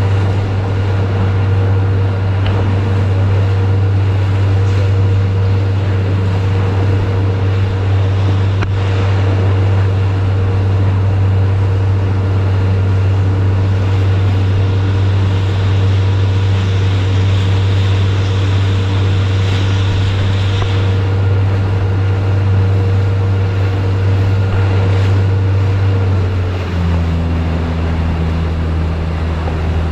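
Small fishing boat's engine running steadily under way, with the rush of water and wind over the hull. Near the end the engine note drops lower.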